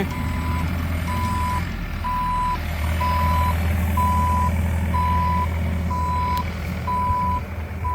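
Excavator's warning beeper sounding about once a second, each beep about half a second long, over the steady drone of its running engine.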